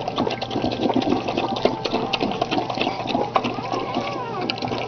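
Wet smacking and rubbing sounds around a newborn boxer puppy, with a few short wavering squeaks.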